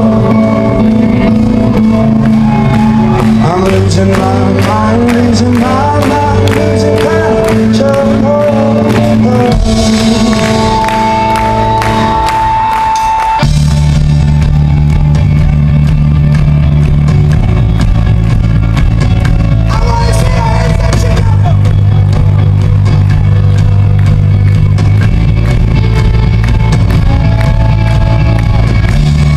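Live rock band playing with a lead singer. About ten seconds in there is a long held note, then a few seconds later the full band comes in heavier, with loud bass and drums.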